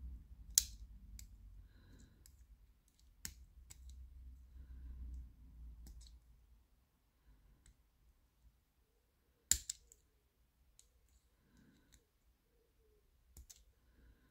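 Lever pick and tension tool working inside an ERA 975 five-lever padlock, giving scattered sharp metallic clicks as the levers are lifted under light tension. The loudest click comes about nine and a half seconds in.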